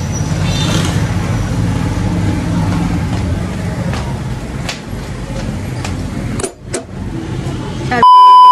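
A steady low rumble with scattered knocks and clicks. Near the end a loud, steady, high beep from a TV colour-bars test-pattern transition cuts in.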